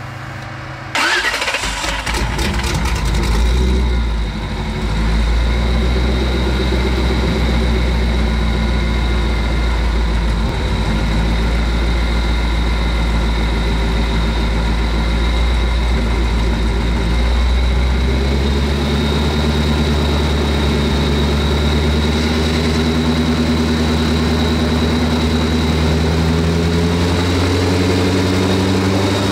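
A 5.3-litre Chevy V8 truck engine driving a propeller through a geared reduction drive is cranked and catches about a second in. It revs briefly, then settles into a steady run with the propeller turning, and its speed steps up from about 18 seconds in.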